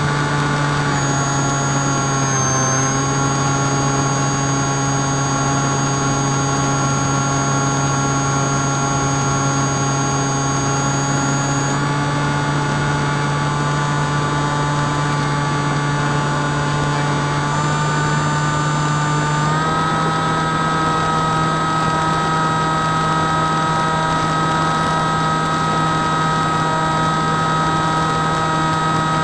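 Drifter ultralight's two-stroke engine and propeller running as a steady drone with wind rush, engine speed rising slightly in two small steps about 18 and 20 seconds in.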